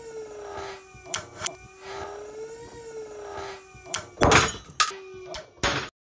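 Camp Atom 2Lock and Beal Be Lock 3 Matic locking HMS carabiners loaded against each other in a pull-test rig, which gives a steady whine as the load builds. Scattered sharp clicks come through, then a loud crack about four seconds in as one carabiner gives way at about 26.6 kN, followed by a few more snaps.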